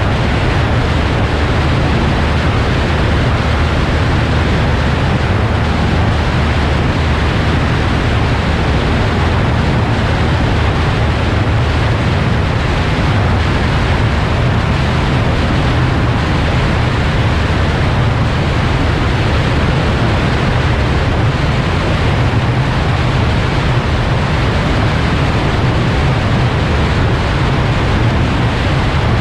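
Steady wind rush over a camera mounted on the wing of a Cessna 172 in flight, with the low drone of the plane's engine and propeller underneath.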